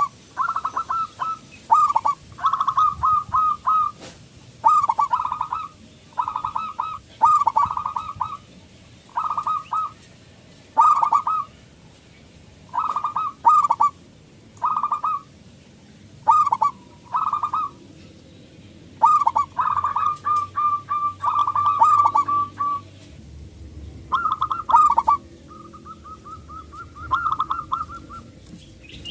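Local Indonesian zebra dove (perkutut) singing its staccato cooing song: short clusters of coos about once a second, a longer unbroken run about two-thirds of the way through, and a softer trill near the end.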